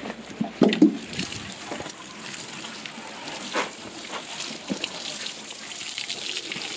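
Watering can with a rose head drilled with enlarged holes sprinkling nematode solution onto soil and ground-cover plants: a steady hiss of falling water, with a few soft knocks near the start.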